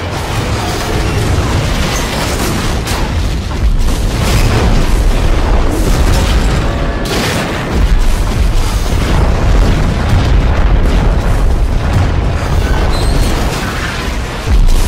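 A rapid string of explosions, booms with a deep rumble following one another without a break. Heavier blasts come about four seconds in, about eight seconds in and just before the end. Music plays under them.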